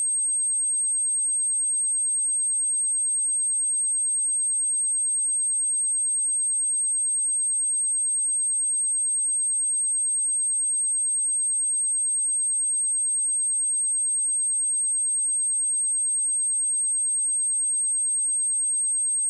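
A pure 8403 Hz sine-wave test tone, a single steady high-pitched whistle held at constant level, played as a speaker test and cleaner tone.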